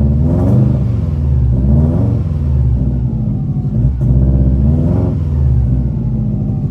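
2004 Subaru WRX's turbocharged flat-four engine running and revved three times, its pitch rising and falling back to idle each time.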